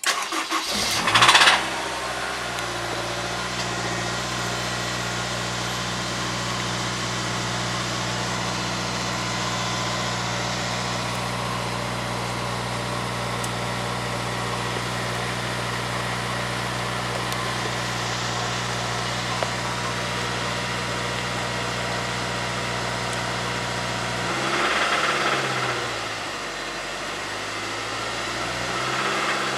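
Honda S2000's four-cylinder engine starting, flaring up briefly, then idling steadily, with one short rev that rises and falls back near the end. The owner suspects a rod knock.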